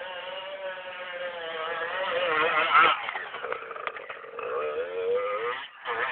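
Dirt bike engine revving up and down under load as the bike climbs, its pitch wavering with the throttle. It is loudest about three seconds in as the bike passes close, rises again, then drops away near the end.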